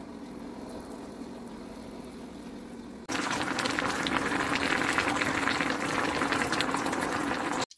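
Tomato sauce simmering in a pan, a quiet bubbling over a low hum. About three seconds in it cuts to a much louder crackling boil of the pochero stew of tilapia and vegetables in a wok, which stops abruptly near the end.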